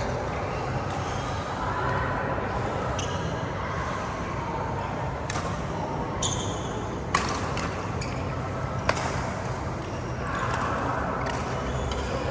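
Badminton rackets striking a shuttlecock in a rally: sharp cracks every couple of seconds, the loudest two about seven and nine seconds in, over steady sports-hall background noise.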